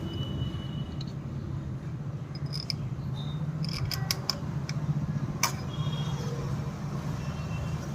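Scattered light metallic clicks and taps, some with a brief ring, from the oil filter cover and its fasteners being fitted back onto a motorcycle engine, over a steady low hum.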